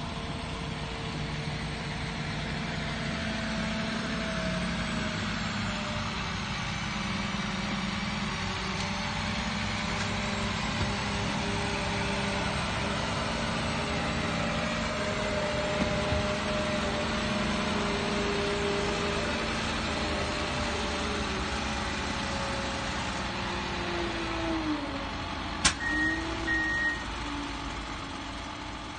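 Ponsse forwarder's diesel engine running under load as the eight-wheeled machine drives up a trailer ramp, with a whine that slowly shifts in pitch. About 26 seconds in there is a sharp knock, then two short high beeps.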